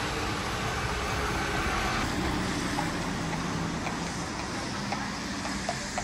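A bus passing on a wet street: its engine running under a steady hiss of tyres on the wet road. From about halfway on come a few faint clicks, the first hoof clops of a carriage horse.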